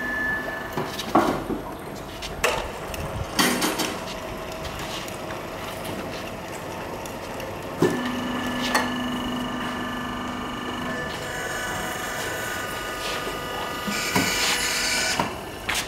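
Metal knocks and clanks from handling a polyethylene pipe butt fusion welding machine and its disc tool. About halfway in, an electric hoist motor hums steadily for about three seconds. A motor then whirs, with a hiss near the end.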